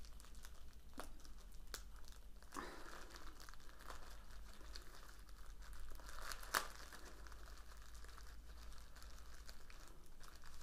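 Plastic packaging crinkling and rustling as a set of drone propellers is unwrapped, with scattered light clicks and one sharper snap about six and a half seconds in.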